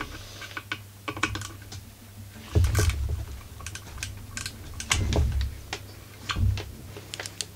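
Gloved hands handling a partly stripped Husqvarna 44 chainsaw: many light clicks and taps of its parts, with a few dull thumps about two and a half, five and six and a half seconds in.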